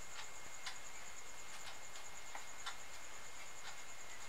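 Quiet room tone: a steady faint hiss with a thin, steady high-pitched whine, broken by a handful of faint, scattered clicks.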